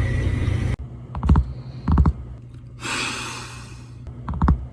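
A steady low noise cuts off abruptly under a second in. Then come a few sharp knocks with a deep thud, and a brief rustling hiss midway.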